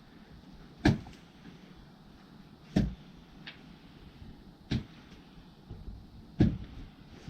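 Axe chopping by hand: four heavy strikes, evenly spaced about two seconds apart.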